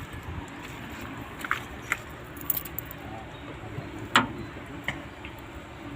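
A few short metallic clicks and knocks, scattered and irregular, the loudest about four seconds in, over a low steady background hum.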